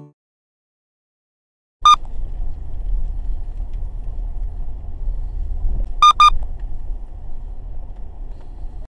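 Car driving slowly on a dirt track, picked up by a dashcam inside the cabin: a steady low rumble of engine and road that begins about two seconds in. A short electronic beep sounds as it starts, and a quick double beep follows about four seconds later.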